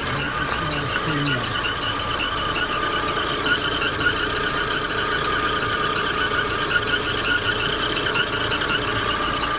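Daewoo Lanos 1.6 16-valve engine running under load with a steady high-pitched whistle from the belt drive. The owner does not know whether it comes from the timing belt, its idler rollers or the water pump.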